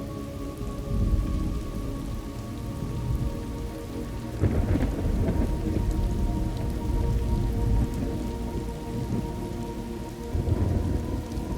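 Recorded thunderstorm ambience: steady rain with low rolls of thunder, one swelling about a second in, a longer, louder roll from about four and a half seconds, and another near the end. Faint steady tones run underneath.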